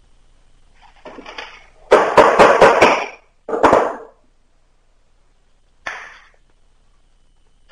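Knife being driven into and worked along a small wooden stick: a short scrape, then a quick run of about five sharp knocks, one more knock, and a single short scrape near the end.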